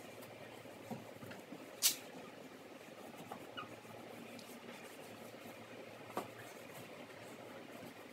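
Faint rubbing and small squeaks of a paper towel wiping a Honda Accord's grille with rubbing alcohol, with a few light clicks, the sharpest about two seconds in and another about six seconds in.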